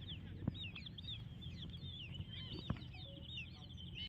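Many small birds chirping, quick high calls overlapping one another without a break, with a couple of faint clicks.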